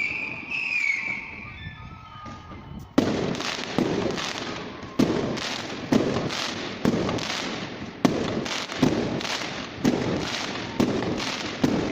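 Fireworks display: a falling whistle in the first second or so, a short lull, then shell bursts going off about once a second from about three seconds in, each with a rumbling tail.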